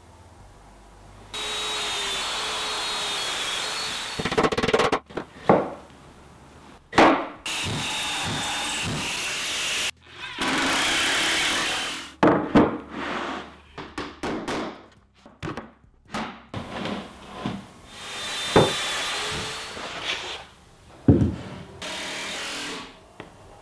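Cordless drill driving screws into plywood in four runs of a second or two each, its motor whine steady while it runs. Sharp knocks and thuds of plywood panels being handled come in between.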